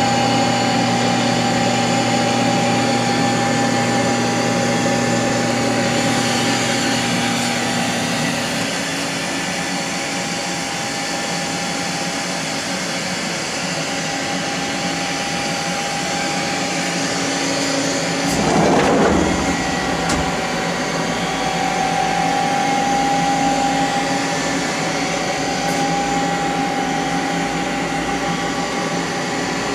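Hardinge GT27 CNC lathe running, a steady mechanical hum and whine made of several held tones. About eight seconds in the lower hum drops away, and a little past halfway there is a brief, louder rushing noise.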